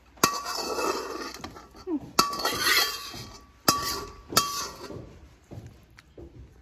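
Metal spatula scraping cooked pork mince out of a wok into a bowl, with four sharp clinks of metal striking the wok and the bowl rim, each ringing briefly and followed by a scraping rustle, then a few softer knocks near the end.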